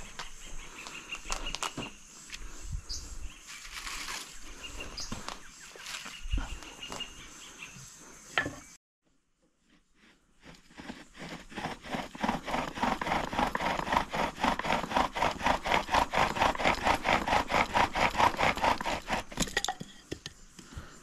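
Scattered rustling and light knocks of handling, then a bow drill at work: the wooden spindle grinding in the fireboard notch with each fast back-and-forth stroke of the bow, about four strokes a second, growing louder before stopping near the end. This is friction drilling to build up an ember for a fire.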